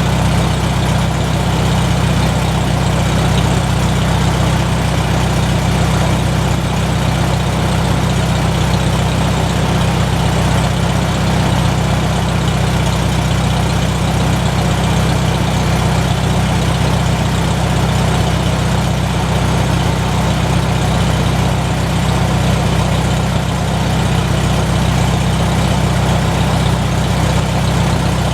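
McCormick-Deering W-4 tractor's four-cylinder engine running steadily after a fresh oil change.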